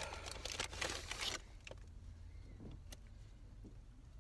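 Food wrapper crinkling for about a second and a half, then a low steady car-cabin rumble with a few small clicks.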